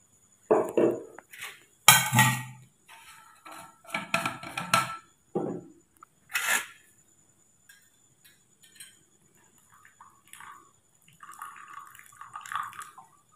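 Clatter of containers and tableware being handled on a metal tray: several separate knocks and clinks. Near the end, hot water is poured from a stainless steel vacuum flask into a glass mug.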